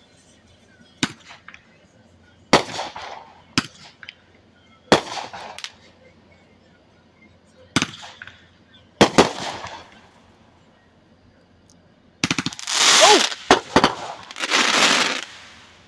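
Fireworks going off: about six separate sharp bangs with short echoing tails over the first ten seconds, then near the end a dense run of crackling from glittering aerial bursts.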